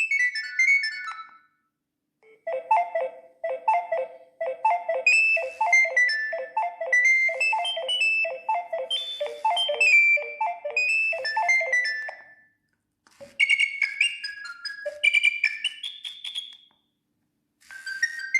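Nokia 7250 mobile phone playing its ringtones one after another through its speaker. One tune ends just after the start. After a short gap a second plays for about ten seconds, a repeating lower accompaniment under a higher melody. A shorter third follows a brief pause, and a fourth begins near the end.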